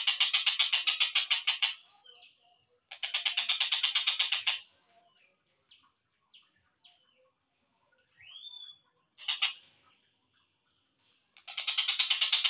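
Tengkek buto kingfisher calling in a slowed-down playback: rapid chattering runs of about ten sharp notes a second, three runs in all, with faint single calls and a rising slurred note in the gaps between them.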